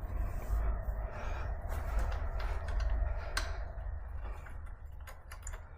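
Faint handling noises of disc brake pads being worked into an e-bike's brake caliper, with one sharp click about three and a half seconds in, over a steady low rumble.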